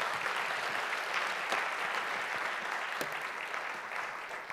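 Audience applauding, a steady clatter of many hands clapping that eases off near the end.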